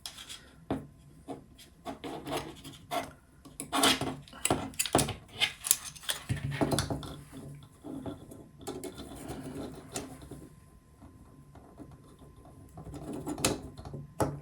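Hard robot parts being handled and slid into place on a chassis plate: irregular clicks, taps and scraping, busiest in the first half and quieter about ten seconds in.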